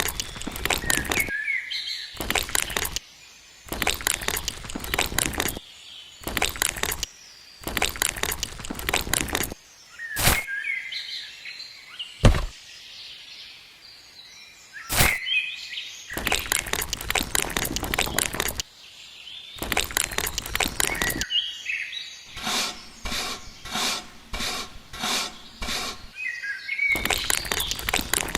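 Birds chirping, between repeated short bursts of rough scraping or rustling noise. Near the end comes a quick, even run of strokes.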